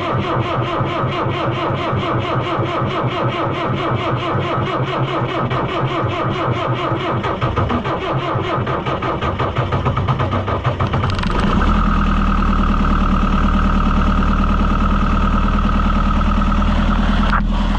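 White 700 tractor engine cranking on the starter for about eleven seconds on a cold start, putting up a little struggle, then firing about eleven seconds in and settling into a steady idle.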